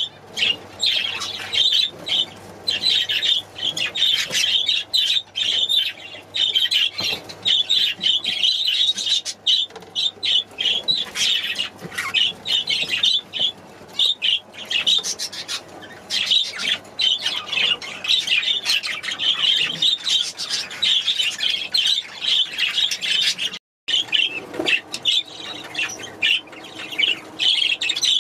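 A flock of budgerigars chattering and squawking nonstop, a dense stream of rapid high calls, broken by one momentary gap near the end.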